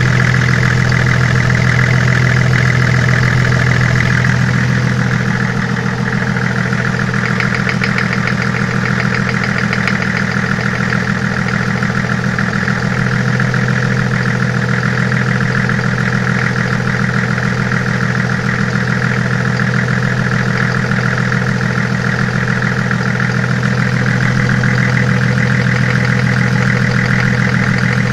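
Toyota 1HZ inline-six diesel idling steadily with an even clatter. The owner, checking it for injector knock, judges that it is now running normally. It gets slightly quieter from about five seconds in until near the end.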